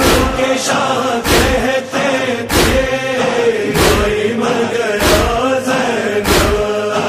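Voices chanting a Muharram noha (mourning lament), held in long pitched lines. A loud, regular beat keeps time about once every 1.2 seconds.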